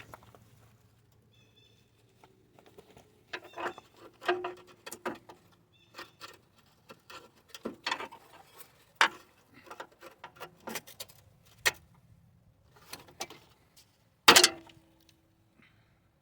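Irregular plastic and metal clicks and rattles from handling a car's engine wiring harness and its connectors. Near the end a sharp metallic clank rings briefly, and it is the loudest sound.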